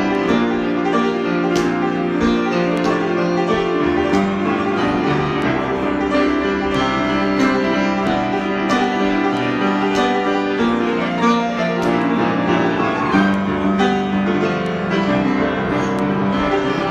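Improvised instrumental music without singing: a steady run of sustained notes and chords with frequent new notes struck.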